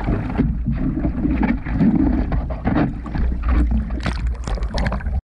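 Sea water sloshing and splashing around a GoPro held at the waterline beside an outrigger boat, with a low wind rumble on the microphone. The splashing grows busier near the end, then the sound cuts off abruptly.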